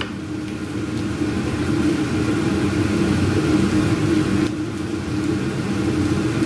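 Sautéed cabbage and corned beef sizzling in a frying pan while being stirred with a spatula, over a steady low hum; the hiss thins out about four and a half seconds in.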